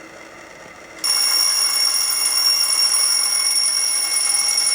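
Kitchen timer going off: a loud, steady high electronic tone that switches on suddenly about a second in and keeps sounding, signalling that the chocolate chip cookies' baking time is up.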